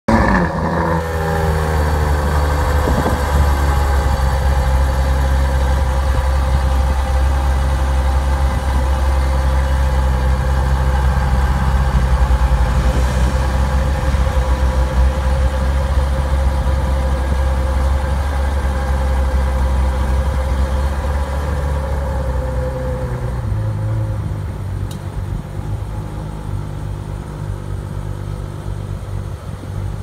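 Ferrari 812's 6.5-litre naturally aspirated V12 idling through its quad exhaust. The revs fall in the first second, then it idles steadily and grows quieter from about 23 seconds in.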